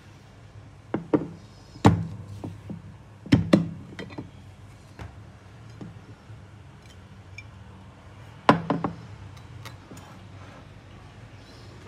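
Sharp knocks and clacks of a glass food container and its plastic lid being handled on a countertop: a cluster of knocks in the first few seconds and one more later, with a drinking glass set down beside it.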